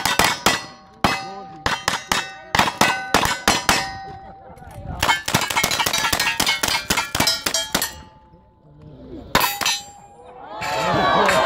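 Rapid gunfire from two shooters' revolvers and then lever-action rifles, each shot followed by the ring of a steel target being hit. There is a short break in the shooting after about four seconds, and a longer lull after about eight seconds. A couple more shots follow, then spectators start cheering near the end.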